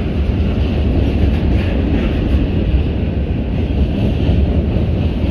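A passing train: a steady, loud rumble, strongest in the deep lows, with no separate wheel clicks standing out.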